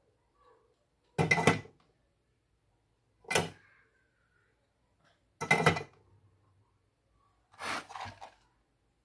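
Four short clattering bursts of handling noise, about two seconds apart; the last is a little quieter and longer.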